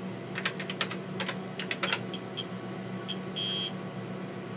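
Keystrokes on the TRS-80 Model 16B's keyboard: a quick run of key clicks in the first two seconds as a command is typed. Then come a few short high beeps, one of them longer, about three and a half seconds in, over a steady low hum.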